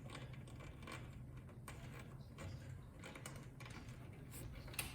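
Faint handling sounds: scattered small clicks and rustles of PC cables being bundled and tied with twist ties, over a low steady hum.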